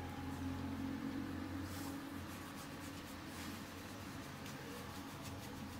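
Faint scratchy strokes of an eye makeup pencil on the skin, over a steady low hum of room tone.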